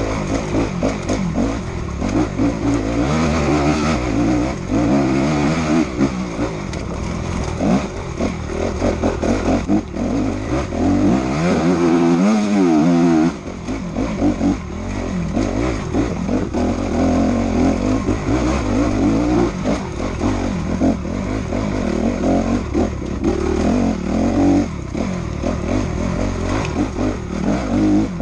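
Enduro motorcycle engine revving up and down through the gears, heard from on the bike as it is ridden hard off-road. About twelve seconds in it winds up in one long rising rev, then drops off sharply.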